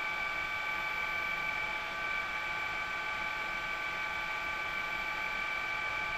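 Steady helicopter noise: an even rushing hiss with a constant high whine over it, unchanging throughout.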